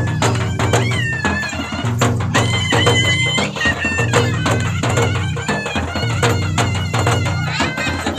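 Traditional folk dance music: a reedy wind instrument plays a wavering, bending melody over steady, fast drumming.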